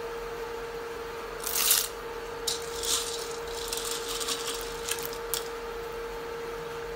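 Snails in their shells being dropped into a pot of simmering soup: a run of short splashes and shell clicks, the loudest about one and a half seconds in. Under it, the induction cooktop's steady hum.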